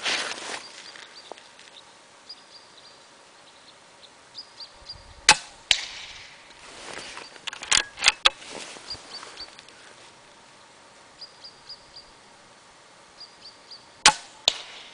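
Weihrauch HW100 .22 pre-charged air rifle being fired: a few sharp shots, most of them followed by a second sharp click a fraction of a second later.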